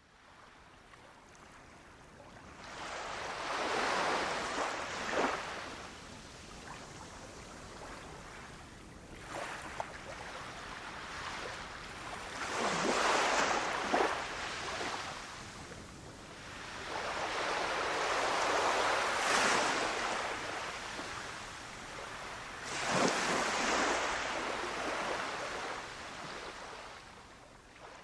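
Sea waves surging and breaking, rising four times into a big rush of surf several seconds apart, with quieter wash in between.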